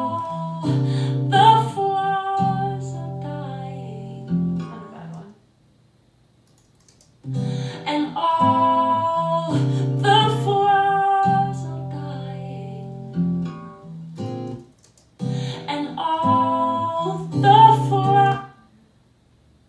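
Playback of a recorded acoustic guitar and female vocal ballad phrase, the same phrase played three times with short pauses between, as different vocal takes are auditioned for a comp.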